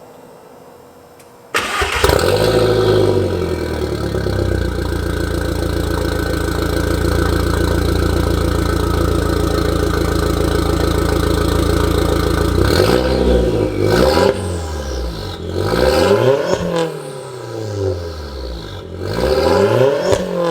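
2002 Volkswagen Golf 337's 1.8-litre turbo four-cylinder starting about a second and a half in through a freshly fitted 3-inch turbo-back exhaust, then idling steadily. In the last eight seconds it is revved several times, each rev rising and falling quickly.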